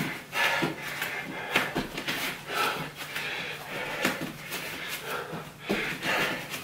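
A man breathing hard in quick, noisy breaths under exertion, with short taps and soft thuds as his hands and forearms are set down on a foam exercise mat during a plank walk.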